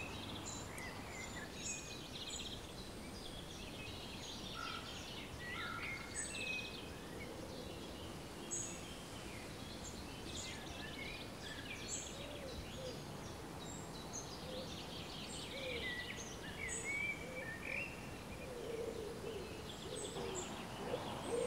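Small birds chirping and calling over a steady background hiss, with short high calls scattered throughout and some lower calls in the second half.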